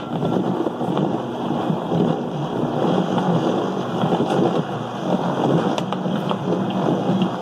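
Vitamix blender running steadily, its motor and blades churning a thick banana and cocoa mix while the tamper pushes it down into the blades.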